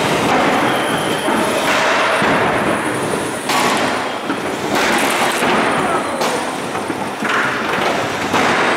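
Featherweight combat robots' electric motors running in a loud, rough whir, with several sudden louder surges of noise and thumps of robots striking the arena floor.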